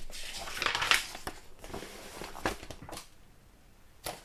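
Crinkling and rustling from handling the contents of a LEGO set's opened box, with a few light clicks in the first second and a half. The sound fades to quiet about three seconds in.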